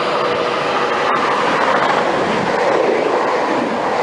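A CrossCountry Class 220 Voyager diesel multiple unit passing through the station at speed: a loud, steady rush of wheel and engine noise with some clatter from the rails, building to a peak around the middle.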